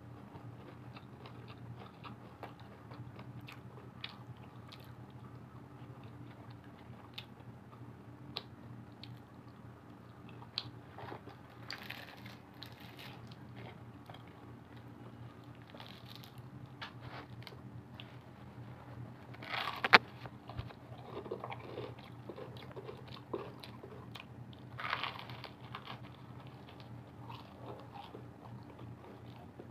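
Biting into and chewing crispy broasted fried chicken: repeated crackly crunches of the breading and chewing, with one much louder crunch about two-thirds of the way through.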